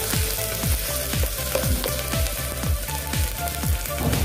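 Onion and mustard paste frying in hot mustard oil in a clay pot, a steady crackling sizzle as it is stirred with a spoon.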